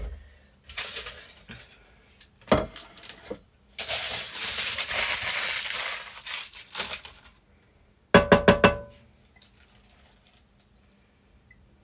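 Pots, pans and utensils clattering as a meal is plated up. In the middle there are a few seconds of a steady hissing rush, and a quick run of five or so ringing metal knocks on a pan follows about eight seconds in.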